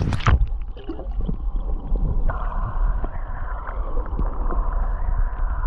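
A splash as the camera goes into the water, then muffled underwater sound heard through the submerged camera: a steady low rumble with faint gurgles and small clicks.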